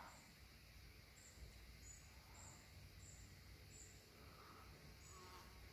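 Near silence: quiet lakeside evening ambience, with a small bird's faint, very high chirps repeating about every half second.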